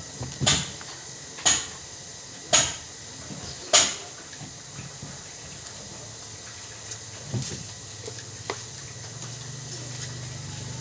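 Four sharp metallic knocks about a second apart, then two lighter clicks: tools and parts striking during the fitting of a washing machine gearbox. A low steady hum comes in near the end.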